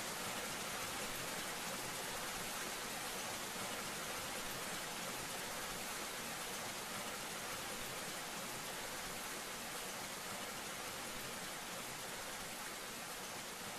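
Waterfall plunging from a rock ledge into a shallow pool, a steady, even rush of falling and splashing water.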